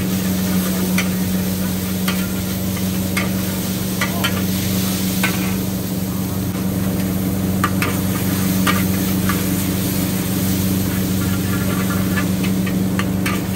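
A metal ladle scrapes and clinks irregularly against a steel wok as yellow noodles are stir-fried, over a steady sizzle and a constant low hum.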